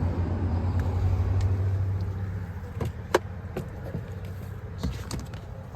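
A car's engine idling as a steady low hum that fades after about two and a half seconds, with a few sharp clicks in the second half.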